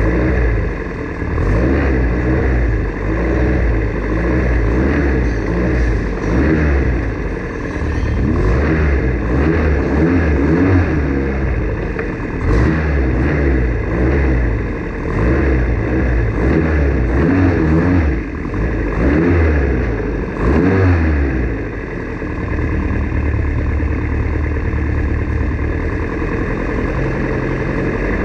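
Formula Ford race car engine revving hard, its pitch climbing and dropping again and again through gear changes. Past the two-thirds mark it settles into a steadier, lower running note.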